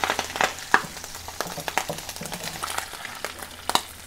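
Diced bacon sizzling in hot fat in a cazuela, browned and nearly done, with a steady hiss broken by many sharp, irregular pops and clicks as it is stirred and lifted out.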